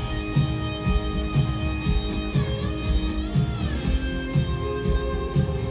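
Live country band playing an instrumental passage through a concert PA: electric guitar notes over a steady drum beat, with guitar notes bending in pitch a few seconds in.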